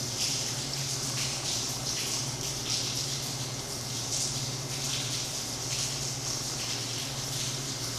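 Steady hiss of falling rain with irregular patter, over a low steady hum.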